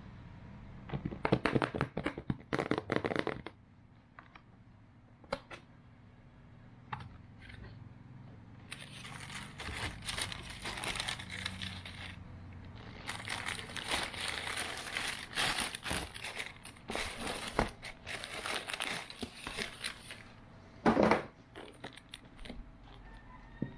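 A cardboard shoe box being opened, with a couple of seconds of knocks and scraping, then a long stretch of tissue paper rustling and crinkling as sneakers are unwrapped. There is one loud knock near the end.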